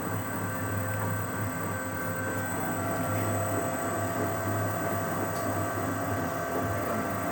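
Industrial washing machine running: a steady mechanical hum with several constant whining tones over it.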